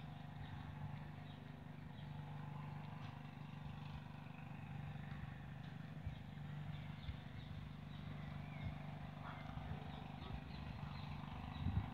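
Steady low hum of distant road traffic, with a single low thump near the end.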